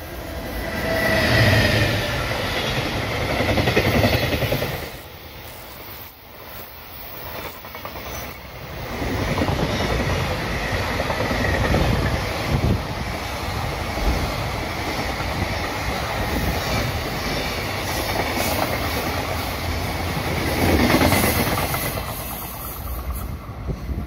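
Electric freight train passing close by. The locomotive goes by loudly in the first few seconds, then a long string of container wagons rolls past with a steady rumble of wheels on the rails, until the last wagon clears near the end.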